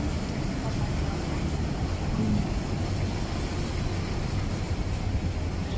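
Steady low rumble of outdoor street noise, with no distinct events standing out.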